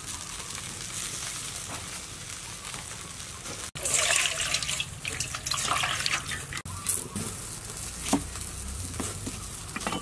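A steady hiss for the first few seconds, then water sloshing and splashing as a red onion is washed by hand in a steel bowl of water, followed by a few scattered splashes and drips.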